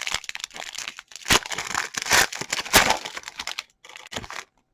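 A trading-card pack wrapper crinkling and tearing as the pack is ripped open, in a run of sharp crackles with the loudest rips about a second and two seconds in.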